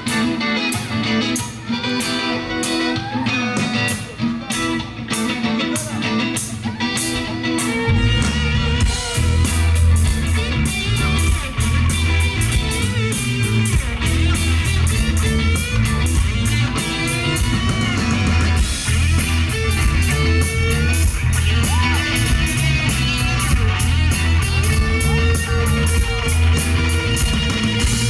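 Rock band playing live, an instrumental opening. A guitar plays over steady high ticks for about the first eight seconds. Then the bass and the full drum kit come in and the band plays on at full volume.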